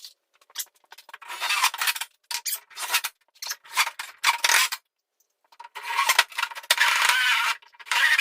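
Power drill driving self-tapping screws into a plastic feeder, in several runs of half a second to a couple of seconds each, the screws grinding and scraping as they cut through the plastic, the longest run near the end.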